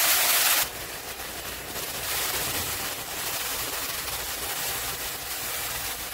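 Sugar syrup poured into hot, butter-roasted semolina in a pan, sizzling with a loud hiss that drops off sharply about half a second in, then a quieter steady sizzle as more syrup goes in and is stirred.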